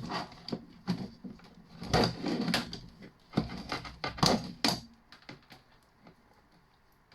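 Irregular knocks, clicks and short scrapes of copper cable and hand tools being handled while the cable is stripped, busiest in the first five seconds and dying down to a few faint ticks.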